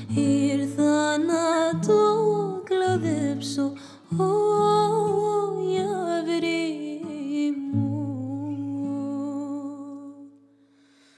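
Female voice singing a wordless, wavering melody over plucked acoustic guitar in a traditional Cypriot song. The phrase fades out about ten seconds in, leaving it nearly silent at the end.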